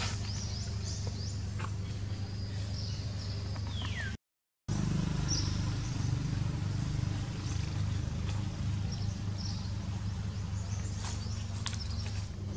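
Outdoor woodland ambience: birds chirping and whistling over a steady low rumble. The sound cuts out completely for a moment about four seconds in, and a few sharp clicks come near the end.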